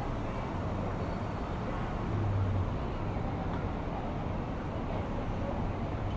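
City street traffic: a steady wash of road noise with a low engine hum from passing and idling vehicles, which swells briefly a little after two seconds in.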